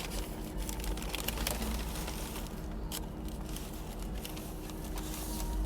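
Wrapping around a takeout turkey leg crinkling and rustling as it is handled and opened, in scattered short crackles over a steady low hum.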